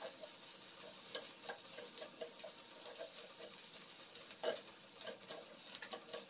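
Silicone spatula stirring a shredded-chicken and onion filling in a nonstick pan, with soft irregular scrapes and taps against the pan, the loudest about four and a half seconds in, over a faint sizzle of the frying filling.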